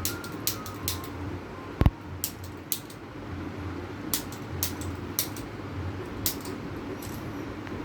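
Scattered sharp clicks and taps, with one much louder thump about two seconds in, over a steady low hum.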